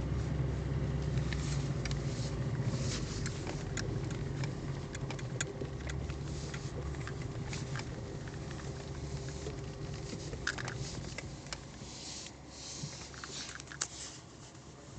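Moskvich 2141 car engine running steadily while driving through mud, with many sharp clicks and knocks over it. The engine drone fades in the last few seconds.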